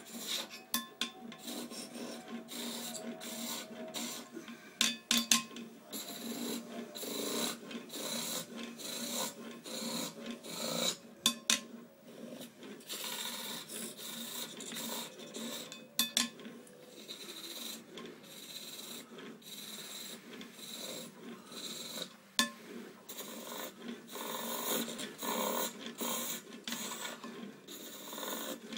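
Hand chisel cutting a small wooden piece turned back and forth on a bow lathe: repeated rasping scrapes as the bow is drawn to and fro, with a few sharp clicks along the way.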